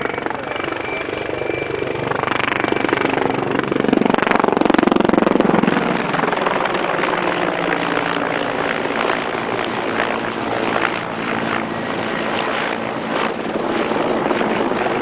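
Mil Mi-35 Hind attack helicopter in flight: a steady rotor chop over turbine noise. It swells to its loudest about four to six seconds in, then stays strong.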